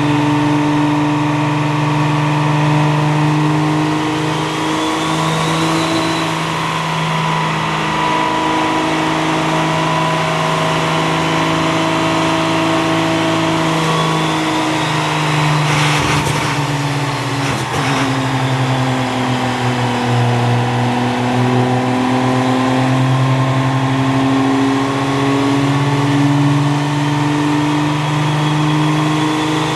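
Several motors running at once with a steady hum, their pitches drifting slowly up and down, with a faint whine rising and falling above them. Two short sharp sounds come about two seconds apart, a little past the middle.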